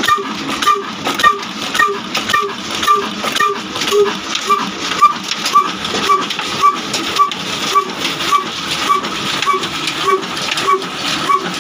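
Old Ruston Hornsby diesel engine running steadily at slow speed, with an even beat of about two firing strokes a second.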